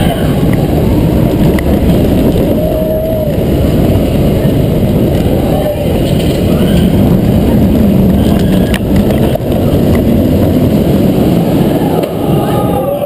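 Roller coaster on-ride sound: a loud, steady rush of wind on the microphone over the rumble of the train running along its steel track through the inversions.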